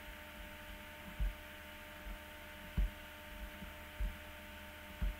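Steady low electrical hum of a microphone and computer recording setup, with five soft, dull low thumps spaced roughly a second apart.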